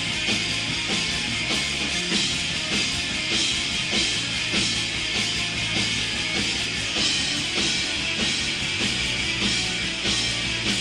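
Rock band playing live, electric guitar and drum kit, with a steady cymbal wash and regular drum hits.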